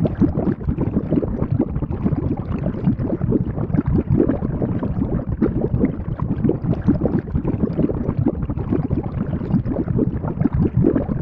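Thick liquid boiling in a cauldron: a constant mass of low, irregular bubbles popping and gurgling.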